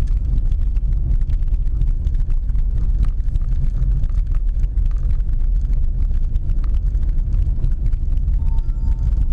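Volkswagen Polo driving over a cobblestone street, heard inside the cabin: a steady low rumble of the tyres on the paving stones with a fine patter of small clicks. There is no irregular rattle from the trunk or seats.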